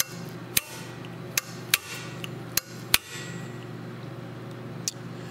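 A steady low hum with about seven sharp clicks or taps at irregular intervals, most of them in the first three seconds.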